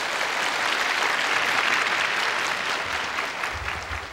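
Studio audience applauding, the clapping thinning out and dying down toward the end.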